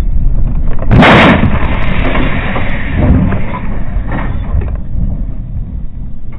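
A vehicle collision picked up by a dash cam's microphone: a sudden loud bang about a second in, followed by a loud rumbling, scraping noise that slowly dies away, with a second surge a couple of seconds later.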